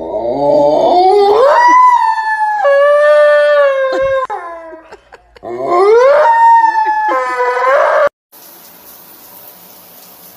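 A dog howling: two long howls, each rising in pitch, held, then trailing down. The sound cuts off suddenly about eight seconds in.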